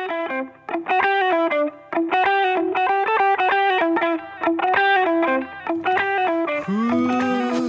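Intro music: a guitar playing short, repeated chords in a steady rhythm, with a note that slides up and holds near the end.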